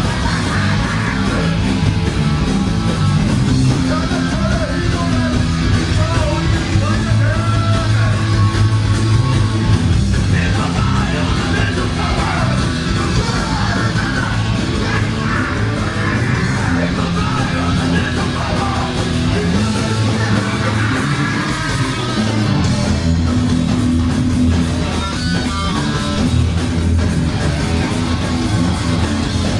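Loud rock music with guitar and bass, playing steadily without a break.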